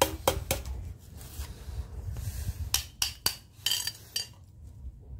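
Metallic clinks and scraping as a steel rod and gloved hand work at a scrap radiator's fins to get at the copper tubes. There are a few sharp clinks at the start and another cluster a little under three seconds in.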